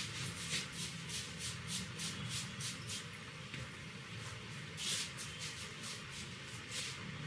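Hands working over a person's head and hair in a head massage: quick rubbing strokes about three a second, then a pause, one louder stroke about five seconds in, and a few more near the end.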